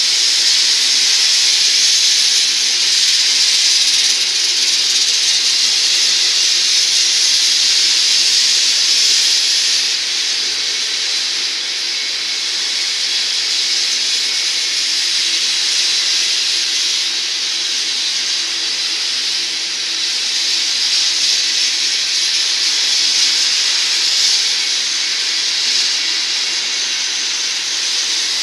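Steel wheels of a crude-oil tank-car train rolling past on the rails: a steady, loud hiss that holds unbroken with no clear beats.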